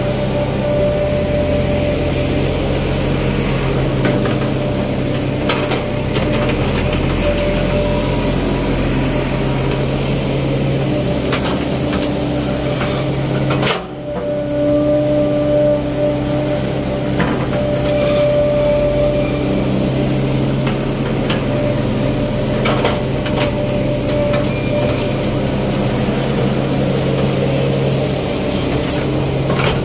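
Sumitomo S265 hydraulic excavator's diesel engine running steadily under digging load, with a held whine above the engine hum. Scattered short knocks and scrapes come from the steel bucket working through soil and stones.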